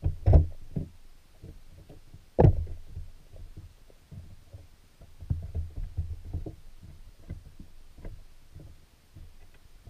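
Muffled low knocks and thumps heard underwater through a submerged camera. Two sharper, louder thumps come just after the start and about two and a half seconds in, with softer irregular knocks throughout.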